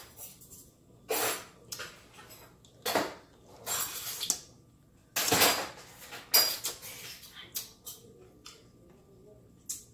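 Silverware and dishes clattering and clinking as they are put away, in several separate bursts. The loudest clatter comes about five and a half seconds in.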